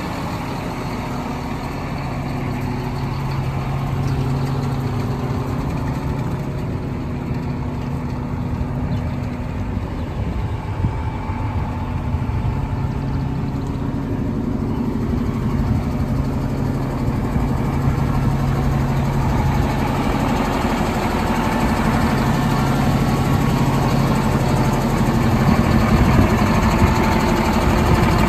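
AGCO diesel engine of a 2018 Terra Gator 8300B floater idling steadily, getting gradually louder toward the end.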